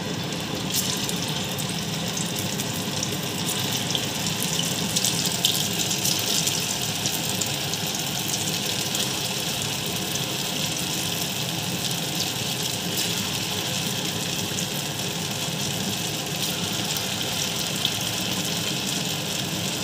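Chhana (paneer) koftas deep-frying in hot refined vegetable oil in a kadai: a steady sizzle with fine crackles throughout.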